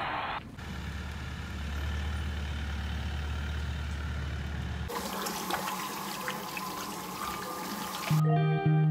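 A steady low hum with faint outdoor background, then, about five seconds in, tap water running into a washbasin while hands are washed under it. Guitar music starts near the end.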